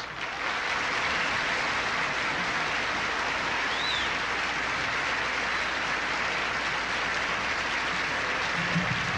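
Studio audience applauding steadily, the applause swelling up in the first moment.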